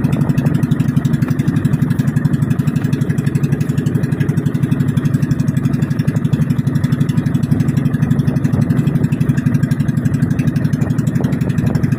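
Outrigger boat's engine running steadily under way, with a fast, even pulse.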